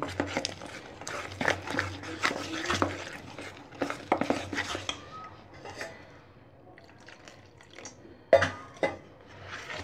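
Metal spoon stirring and beating wet besan batter in a stainless steel bowl, clinking and scraping against the sides. The strokes come thick and fast at first and thin out after about five seconds, with one sharp clink of the spoon on the bowl near the end.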